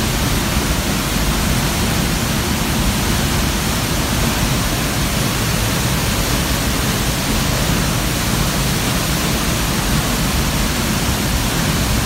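Waterfall close by, a loud, steady rush of falling water.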